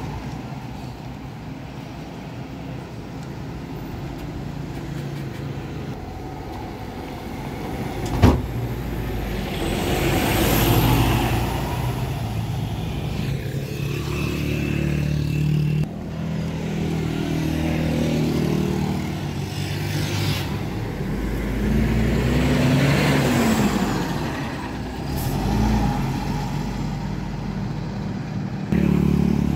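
Expressway traffic going past: several vehicles' engines and tyres swell and fade in turn. A single sharp knock comes about eight seconds in.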